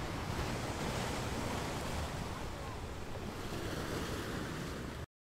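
Small waves washing onto a sandy beach, with wind on the microphone; the sound cuts off abruptly just before the end.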